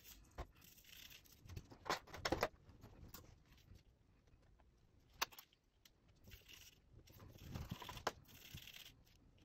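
Small brush scrubbing a spray-gun nozzle, a faint rustle with a few light metallic clicks and clinks scattered through.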